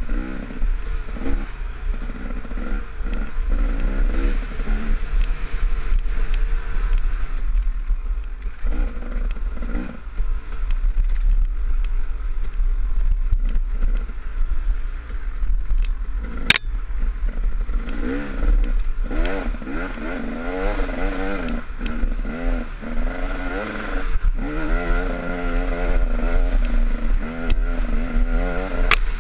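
Off-road dirt bike engine revving up and falling back again and again as the bike is ridden hard along a rough woods trail, with the clatter of the bike over the ground. Two sharp knocks cut through, one about halfway through and one near the end.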